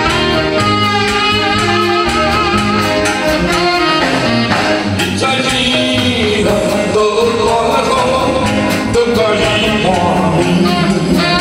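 Live band playing a slow song, the saxophone carrying the melody over drums and keyboard. About five seconds in, a man starts singing into a microphone over the band.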